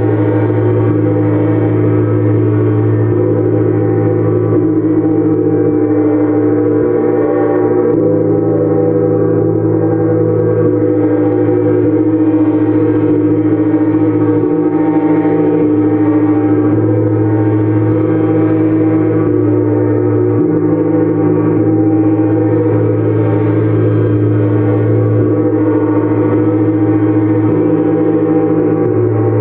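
Gongs played continuously in a healing sound bath: a dense, steady wash of many ringing tones that slowly shift and swell, with no single strike standing out.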